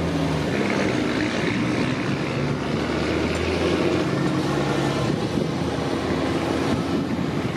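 Diesel engines of large farm tractors droning steadily as the tractors drive past one after another.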